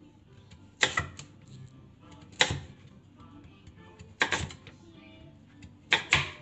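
Chef's knife slicing through sweet potato and knocking on a wooden cutting board: seven sharp chops in four groups, mostly in quick pairs. Faint music plays underneath.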